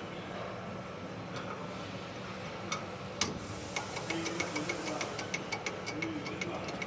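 CNC lathe mechanism running with a steady hum. About three seconds in it gives two sharp clicks, then a quick, regular ratcheting of about five clicks a second.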